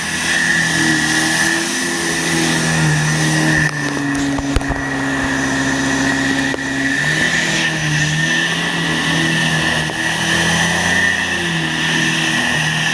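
Bissell Healthy Home 2nd Gen upright vacuum cleaner (model 16N5) running on carpet with its brush roll spinning. A steady high whistle from its cyclones rides over the motor hum, and the motor's pitch shifts up and down as the load changes.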